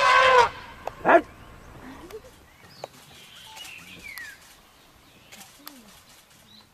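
Asian elephant trumpeting loudly during a charge, the call cutting off about half a second in, then a second short, shrill call about a second in. After that, only faint bird chirps.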